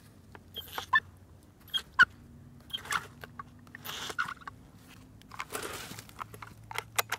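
Handling noise around a chainsaw that is not running: irregular crunches and clicks as hands and the phone move over the saw and dry leaves, with a brief rustle about six seconds in.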